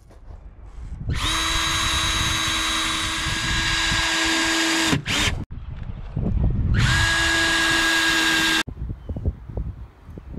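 Cordless drill driving screws into wooden chair slats. The motor runs at a steady pitch for about four seconds starting a second in, blips briefly, then runs again for about two seconds, with a few handling knocks between the runs.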